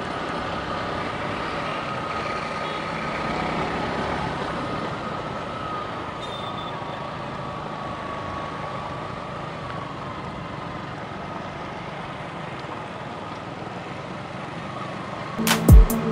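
Suzuki Gixxer SF 155's single-cylinder engine running at a steady cruise, with road and wind noise, heard from the rider's seat. Loud music with a heavy beat starts suddenly near the end.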